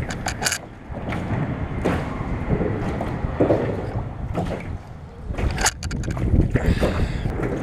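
Water splashing and lapping around a hand dipped into the lake beside a small boat, with a few short sharp splashes, about half a second in, near two seconds and near six seconds, over a low rumble on the microphone.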